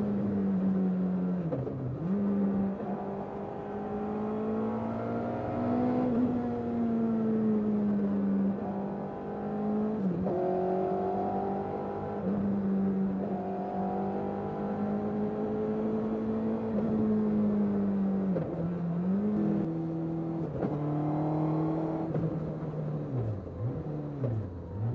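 Suzuki Hayabusa inline-four motorcycle engine in an MK Indy sports car, heard from on board while driving. A steady engine note dips in pitch and climbs back a few times as the revs change, with several quick drops and rises near the end.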